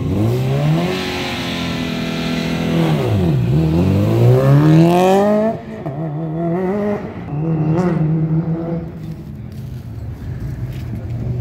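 Subaru Impreza WRX's turbocharged flat-four accelerating hard from a standing start, revving up through the gears with a sharp dip in pitch at each shift, then growing fainter as it pulls away down the strip.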